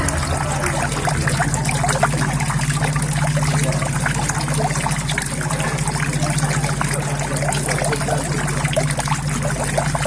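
Water trickling and splashing steadily into a koi pond, with many small drips and splashes, over a steady low hum.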